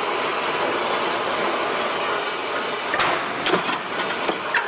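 CNC spring coiling machine running as heavy wire is bent into a coil, giving a steady mechanical noise. About three seconds in come several sharp metallic clanks in quick succession.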